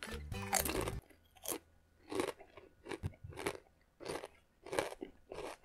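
A Doritos tortilla chip being bitten and chewed with the mouth close to the microphone, about seven crisp crunches at an even pace. Background music cuts off about a second in.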